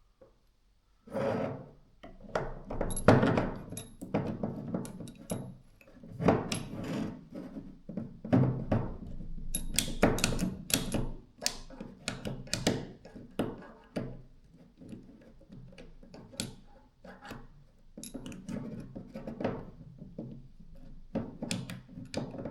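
Hammer drill gearbox parts being handled and fitted by hand: irregular clicks, knocks and thunks of small parts going together. The part is not seating the way it should.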